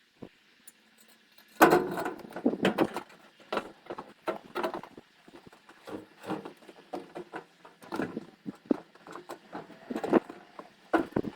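Irregular knocks, clicks and light rattles of things being handled, starting about a second and a half in and going on unevenly.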